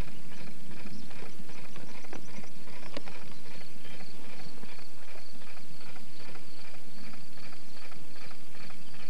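A horse's hooves clopping on a road at a steady trot, an even rhythm of several beats a second.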